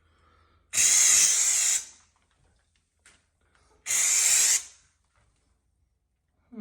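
Orange peel wall texture sprayed onto a wall in two short hissing bursts, the first just over a second long and the second a little shorter, about three seconds apart.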